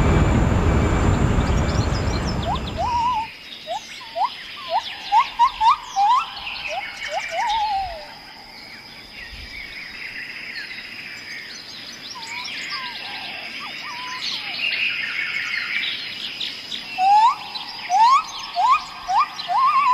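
Birds singing: one bird gives quick runs of short rising whistled notes, about four to eight seconds in and again near the end, while other birds chirp higher and a thin high steady tone carries on behind. For the first three seconds a loud rushing noise covers everything, then cuts off abruptly.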